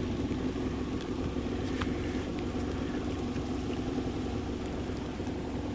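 Small boat motor running at a steady speed, a constant hum with an even pitch.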